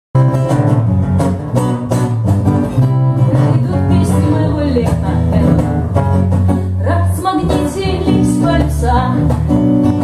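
Acoustic guitar strummed in a steady rhythm, with an electric bass guitar playing sustained low notes underneath: a live guitar-and-bass duo.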